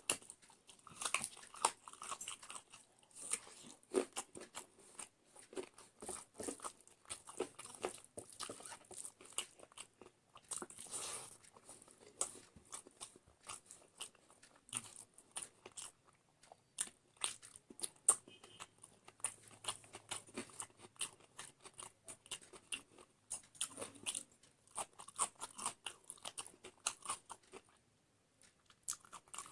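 A person eating close to the microphone: steady chewing and biting with many short crunches and mouth clicks, pausing briefly near the end.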